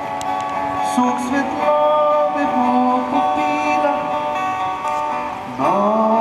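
A man sings a slow song to his own acoustic guitar, amplified through large outdoor PA speakers. His long held notes step from pitch to pitch, and a new phrase swoops in near the end.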